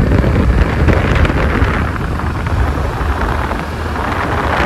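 Wind rushing over a helmet-mounted microphone on a moving Suzuki Avenis 125 cc scooter, a steady loud rumble with the scooter's running engine underneath.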